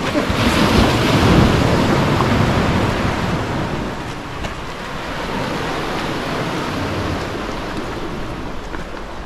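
Sea waves washing against the harbour's rock breakwater, with wind buffeting the microphone. A wave surges up about half a second in and slowly dies back to a steady rush.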